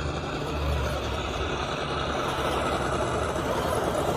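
GT Power simulated RC engine sound module playing a truck engine sound through the crawler's speaker as it drives, a steady low engine rumble that is heaviest in the first second.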